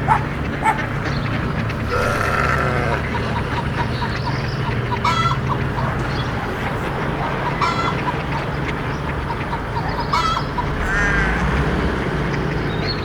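Poultry calling, with short calls about every two and a half seconds and a wavering call near the end, over a steady low hum.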